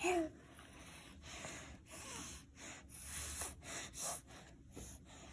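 A baby's brief high vocal squeak, then a run of short, irregular breathy puffs and huffs.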